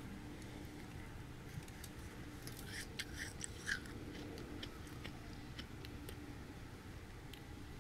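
Soft freezer frost crunching as it is worked: a cluster of sharp crackles about three seconds in, then a few scattered ticks.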